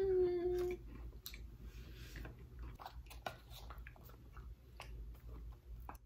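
A person chewing a sweet with the mouth closed, opening with a short hummed "mmm" that rises and then holds. Soft clicks and taps follow as the chewing goes on and a small cardboard snack box is handled.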